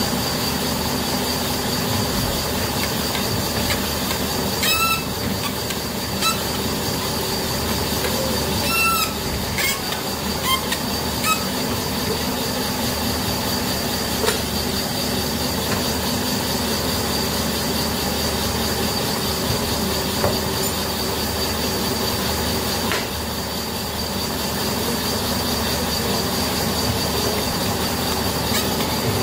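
Connecting-rod bush boring machine running steadily, a hum with a thin high whine over it. A few ringing metal clinks come about 5, 9 and 11 seconds in as the steel con rods and tools are handled.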